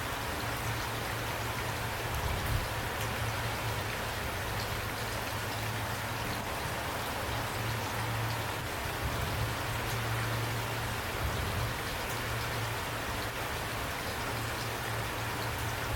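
Steady rain falling, with individual drops ticking over an even hiss, and a low steady hum underneath.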